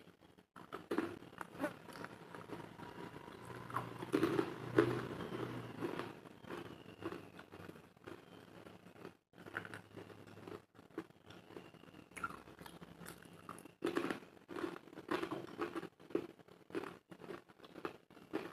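A person chewing and biting food close to the microphone: irregular runs of short crunching clicks, with a brief pause about nine seconds in.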